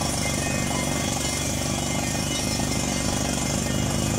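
Truck-mounted down-the-hole (DTH) water well drilling rig drilling: engine and 1100 cfm air compressor running steadily under the rapid hammering of the DTH hammer, with compressed air blasting dust and cuttings out of the borehole.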